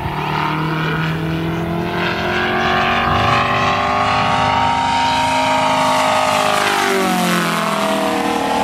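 Radial (star) engine of a large radio-controlled model airplane running in flight during aerobatics. Its pitch climbs gently, then falls sharply about seven seconds in as the plane passes overhead.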